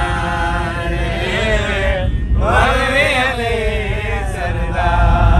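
Several men singing a Punjabi devotional chant about Ali together, with a short break about two seconds in, over the low rumble of a moving van.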